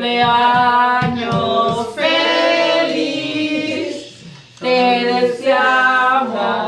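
A group of voices singing a cappella, with a short break about four seconds in.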